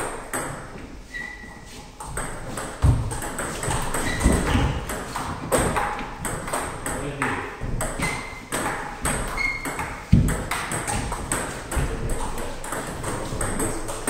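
Table tennis rally: the ball clicking sharply off paddles and the table in quick back-and-forth hits. Two heavier thuds land about three and ten seconds in.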